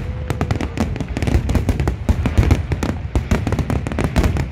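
Fireworks display at full barrage: a rapid, unbroken run of bangs and crackling, many bursts a second overlapping.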